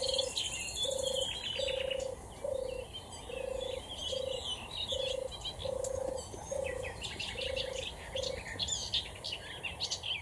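European turtle dove singing: a steady series of low purring coos, each under half a second, about one and a half a second, stopping about eight seconds in. Small songbirds chirp and trill higher up throughout.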